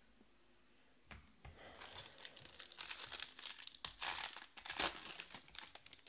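Silver foil wrapper of a trading-card pack being torn open and crinkled by hand, a single light tap about a second in, then a run of crackling that is loudest toward the end.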